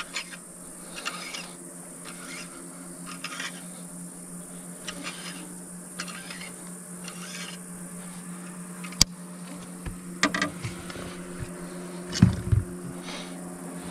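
Fishing tackle being handled on a boat: scattered light rustles and clicks, one sharp click about nine seconds in and a few knocks near the end, over a steady low hum.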